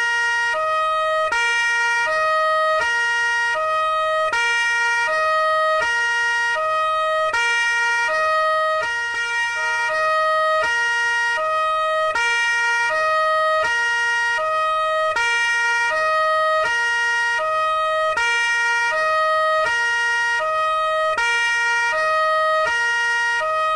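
Italian police two-tone siren alternating steadily between a low note and a high note, switching about every three-quarters of a second.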